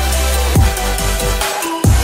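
Electronic dance music with heavy bass and a kick drum. The bass drops out for a moment near the end, then comes back hard.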